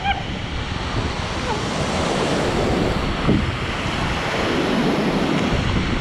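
Rushing water of a stream just below a waterfall, a loud, steady rush close to the microphone.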